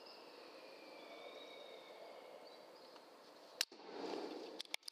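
Faint steady background with a few faint high chirps, then about three and a half seconds in a single sharp crack of an Air Arms S510 PCP air rifle firing a pellet. A short rustling noise and a few clicks follow.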